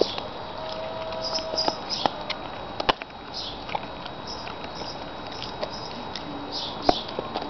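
Alaskan Malamute gnawing on a raw bone: irregular sharp cracks and clicks of teeth on bone, the loudest about three seconds in and near the end.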